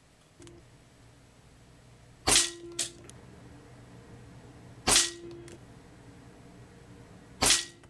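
Three shots from a Crosman Challenger .177 calibre PCP air rifle, about two and a half seconds apart. Each is a sharp crack followed by a brief ring, with a fainter click after the first.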